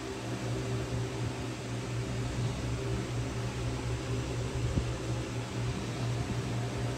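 Steady mechanical hum with a low drone, like a room fan running, and a faint click about two thirds of the way in.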